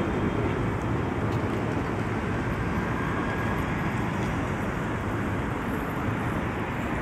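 Steady city street traffic: cars and buses passing, heard as a continuous low noise with no distinct events.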